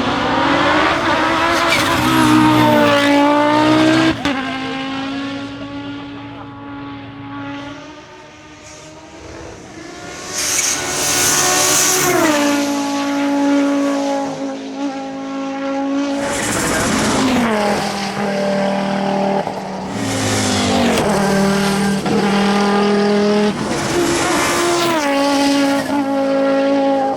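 Turbocharged five-cylinder engine of an Audi quattro hill-climb car accelerating hard, its pitch climbing and dropping at each upshift through the gears. It fades briefly about a third of the way in, then comes back loud with a hissing burst and more upshifts.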